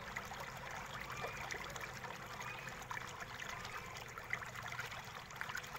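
Faint steady background noise with light trickling, continuous room ambience under the title card.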